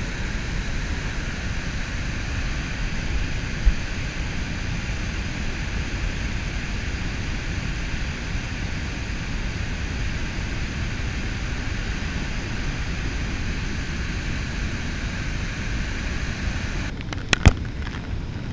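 Victoria Falls' falling water making a steady, unbroken rushing noise. There is a brief knock about three and a half seconds in and a few sharp clicks near the end.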